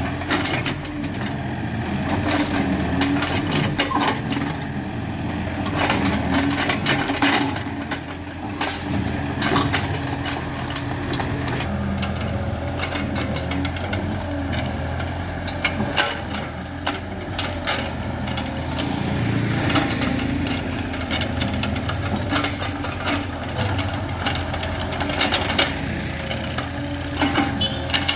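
Excavator engine running steadily at working speed, with frequent sharp knocks and clanks over it throughout.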